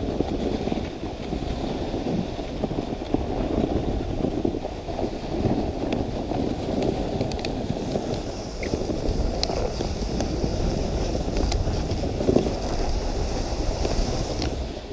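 Dog sled runners sliding over snow, a steady rushing noise, with wind on the microphone and a few light clicks.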